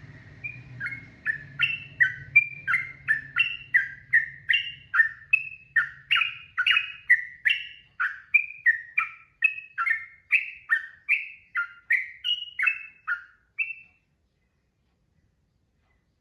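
Sooty-headed bulbul (trucukan) singing a long unbroken run of short whistled notes, about two or three a second, alternating higher and lower; it stops about two seconds before the end. A faint low hum underlies the first few seconds.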